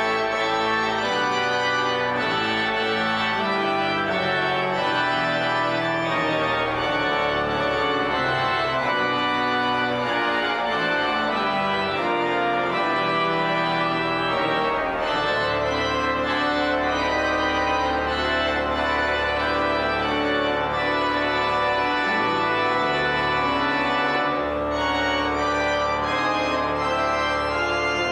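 Church organ playing a postlude of full, sustained chords, the harmony changing every second or so, with the deep bass notes growing stronger about halfway through.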